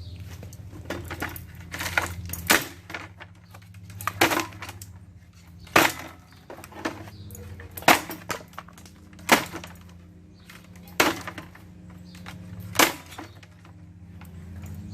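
Repeated sharp knocks and cracks, about one every one to two seconds, as a ceiling fan is smashed and broken apart, over a steady low hum.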